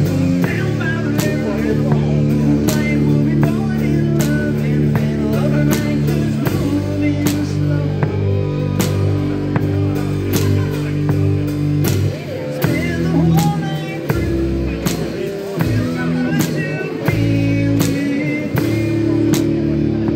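Live rock band playing: guitar and sustained low bass notes over a drum kit keeping a steady beat.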